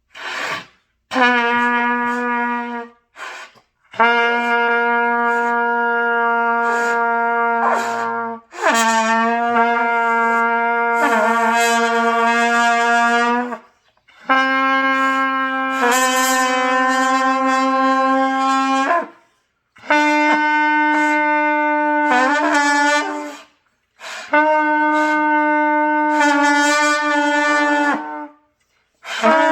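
Trumpet played in long held notes, each about four to five seconds, with short breaks for breath and a few brief starts at the beginning. The first notes stay on one pitch, and later ones step up in pitch: beginner practice of sustained scale tones.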